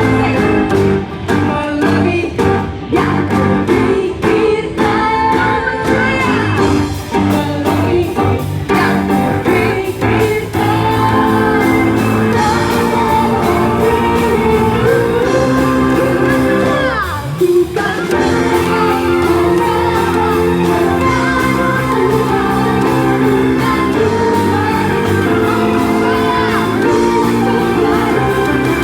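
Worship song music: singing over sustained keyboard chords and a band, with a falling sweep a little past the middle.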